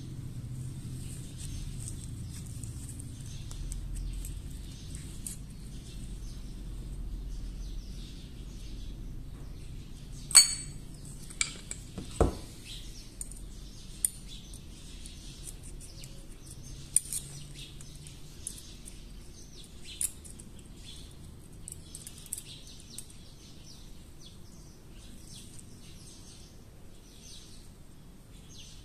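Small steel pistol parts and tweezers clinking during disassembly of a Beretta 950 pocket pistol: scattered sharp metallic clicks, the loudest about ten seconds in.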